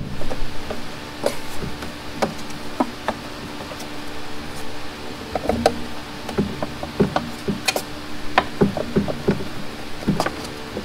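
Scattered knocks and taps as a homemade heat-shield panel is pushed and worked into place behind a Kubota tractor's brake pedals, bumping against the metal around it. The knocks are sparse at first and come in clusters from about halfway through.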